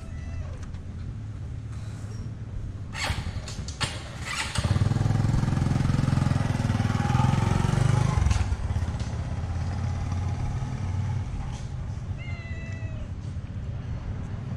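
A cat gives a short falling meow at the start and another near the end. Under it runs a steady low engine hum from a motor vehicle, which grows much louder for a few seconds in the middle, after a few sharp clicks.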